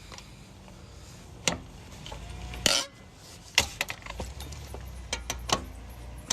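Sharp metallic clinks and knocks of hand tools working the lug nuts on a car wheel, about eight strikes spread unevenly, the loudest about two and a half seconds in.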